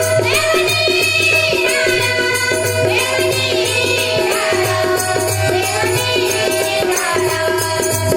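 Bhajan music: a harmonium playing held notes under a singing voice that glides between pitches, over a fast, even rattling beat of hand percussion.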